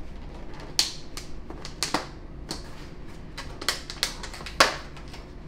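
Clear plastic lid being worked off a meal-prep food container: a string of irregular sharp plastic clicks and crackles, the loudest near the end.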